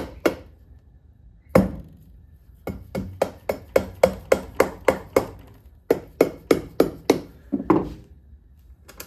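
Soft hammer tapping on an engine's crankcase in quick runs of sharp knocks, about three a second, with a heavier blow a little after the start and another near the end. The knocks are driving the case halves apart while a case splitter presses down on the crankshaft.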